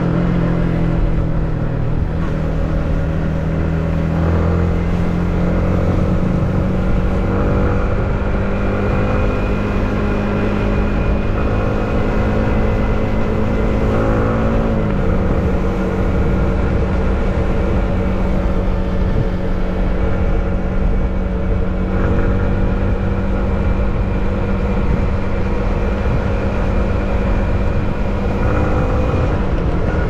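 Yamaha MT15's 155 cc single-cylinder engine running under way. The engine note rises slowly and then drops sharply about halfway through, then holds steady.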